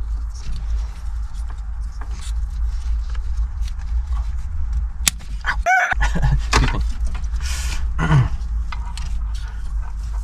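Plastic wiring connectors and loom clicking and rustling as a tight plug is forced into place behind the car's dash, over a steady low rumble. About halfway there is a short strained cry, and then a low grunt, that mark the effort.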